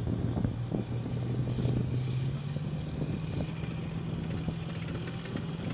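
An AAV7 amphibious assault vehicle's diesel engine running as the vehicle drives out of the surf onto the beach. The engine note is steady, then rises in pitch about two seconds in and holds at the higher note.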